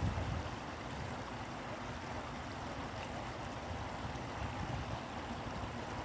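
Shallow stream flowing over stones: a steady rushing of water.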